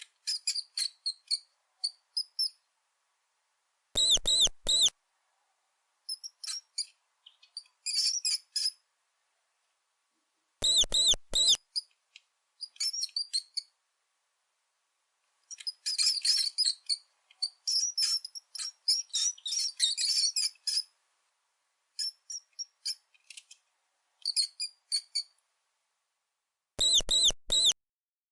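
Mouse squeaking: quick runs of high-pitched squeaks and chirps, broken by short silences. Three times a set of three louder, longer squeaks stands out: once near the start, again about a third of the way in, and again near the end.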